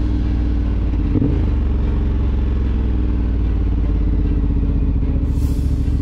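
Off-road motorcycle engine running steadily, with a short hiss about five and a half seconds in.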